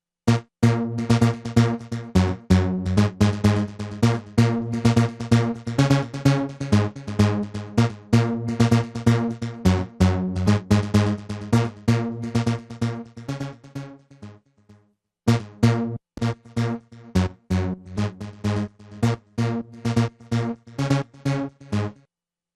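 Electronic music playback: a drum-machine beat with synthesizer chords. The level pumps on every beat, jumping up and then sagging, the ducking effect of sidechain compression. The music fades out a little past halfway, stops for about a second, starts again and stops near the end.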